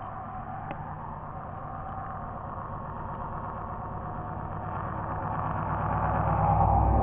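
Road traffic noise from a vehicle approaching on the road, growing steadily louder over the last two seconds or so.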